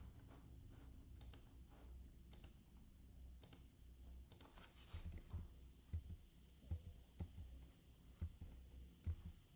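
Faint computer mouse clicks, about one a second through the first half, then a run of soft, low thumps in the second half.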